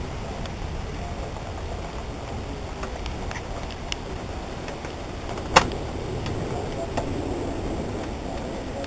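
Outdoor ambience before a thunderstorm: a steady low rumble and hiss, with scattered faint ticks and one sharp click a little past halfway.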